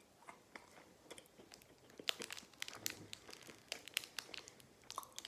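Crinkling of the plastic wrapper of an ice cream stick as it is handled and peeled back, in quick sharp crackles that grow louder and denser about two seconds in.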